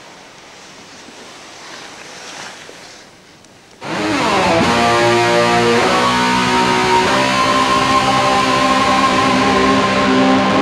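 Faint hiss at first, then loud guitar music breaks in suddenly about four seconds in, with held, ringing chords that keep going.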